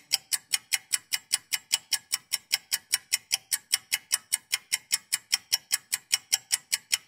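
Clock ticking quickly and evenly, about five ticks a second.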